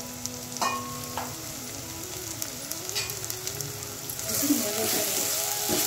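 Chopped onions and ground spices sizzling in hot oil in a pot, stirred with a steel spoon that clinks against the pot a few times. The sizzle grows louder about four seconds in as the mixture is stirred.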